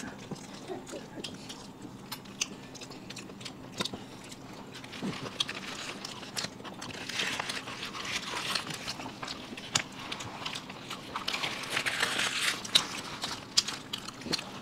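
Close-up eating sounds: chewing and biting with many small clicks, and crinkling of paper food wrapping, busiest in the middle stretch.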